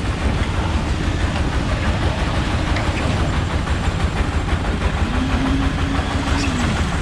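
Heavy diesel construction machinery running with a dense, steady low rumble. Near the end a tone briefly rises and then falls.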